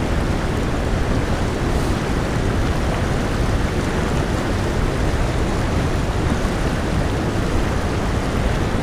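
Fast river current rushing steadily, an even noise with no breaks.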